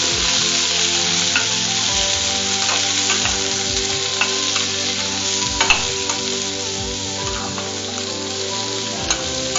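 Diced vegetables and shallots sizzling as they sauté in hot oil in an aluminium kadai. A metal ladle stirring them clicks and scrapes against the pan now and then, once more sharply a little past the middle.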